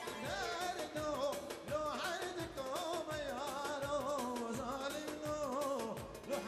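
Kurdish dance music for a line dance: an ornamented, wavering melody over a steady drum beat.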